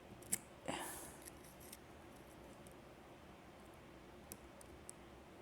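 A half-diamond lock pick in the pin-tumbler core of an old, grimy padlock: one sharp metallic click about a third of a second in, a brief rustle just after, then only a few faint, scattered ticks of the pick against the pins.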